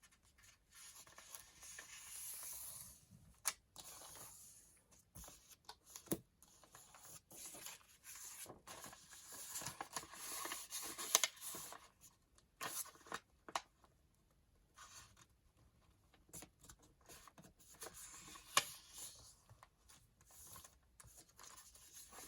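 Paper being handled: sheets rustling and sliding against each other in several stretches, with scattered light taps and clicks.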